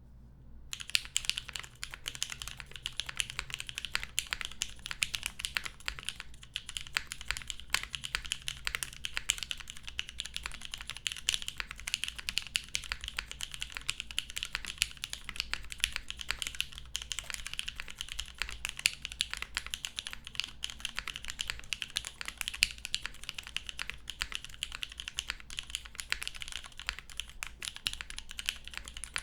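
Continuous fast typing on a gasket-mounted Keycult No. 2/65 mechanical keyboard with lubed vintage Cherry MX Black linear switches on an aluminum plate and GMK keycaps: a dense run of key clacks that starts just under a second in.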